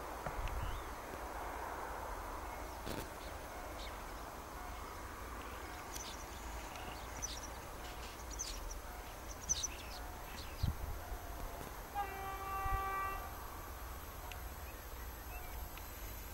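SA108 diesel railbus approaching over a low steady rumble, sounding one horn blast of about a second roughly twelve seconds in. A few short high chirps come in the middle.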